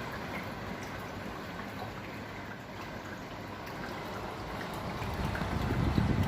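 Evaporative air cooler running: its fan blows steadily while the pump trickles water down through the cooling pads. A low rumble swells about five seconds in.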